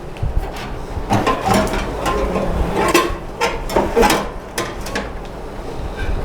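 Irregular metallic clicks, knocks and scraping as a hard disk is pushed into the drive bay of a metal PC cabinet.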